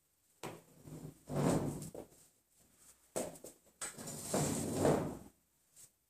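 Handling noises: irregular rustling and light knocks as a man gathers things off a table and moves about. The longest, loudest rustle comes about four seconds in.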